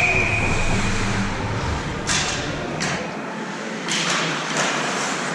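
Ice hockey play in an echoing arena: a steady hiss of skates and crowd, broken by three sharp knocks, about two seconds in, near three seconds and around four seconds.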